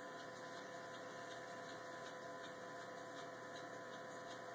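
Electric potter's wheel running at fairly high speed, a faint steady hum with a few constant tones, while wet clay is being centered on it.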